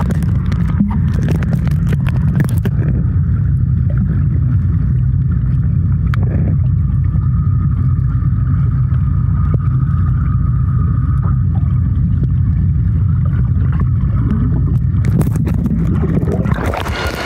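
Muffled underwater rumble of pool water heard through a submerged camera's microphone, steady and deep with the higher sounds cut away. A few sharp splashes and knocks come near the start and again near the end.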